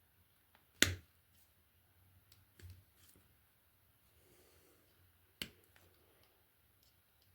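Two sharp clicks, about a second in and again past the middle, with a smaller knock and faint handling between them: pliers and electrical wiring being handled while twisting socket wires together.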